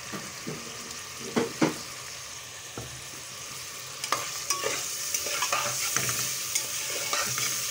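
Raw chicken pieces sizzling in hot ghee in a cooking pot as they start to sauté. There are two knocks about a second and a half in, then from about four seconds in a spoon clicks and scrapes against the pot as the chicken is stirred.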